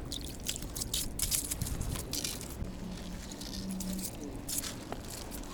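Footsteps crunching and squelching in thawing snow, irregular and densest in the first couple of seconds, with a few more steps near the end.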